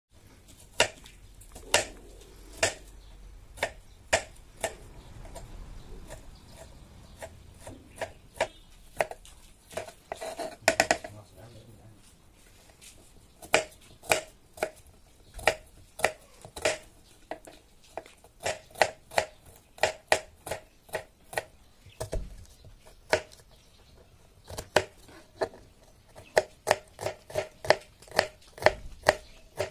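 Kitchen knife chopping garlic on a plastic cutting board set on a plastic bucket lid: sharp knocks of the blade on the board, each with a short ring. The knocks come irregularly at first, then in a steadier run of about three a second in the second half.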